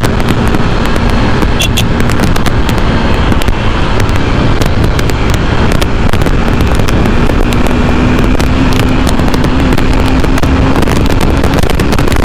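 Wind buffeting and crackling hard on the microphone of a Yamaha FZ V3 motorcycle ridden at speed, with the 149cc single-cylinder engine's steady hum underneath, clearest in the second half.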